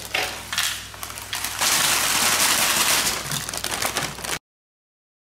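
Crumbled baked seed mix of sunflower and pumpkin seeds poured and brushed off a sheet of baking paper into a wooden bowl: crackling paper and rattling seeds, scattered at first and then a dense steady rustle from about one and a half seconds in, stopping abruptly about four seconds in.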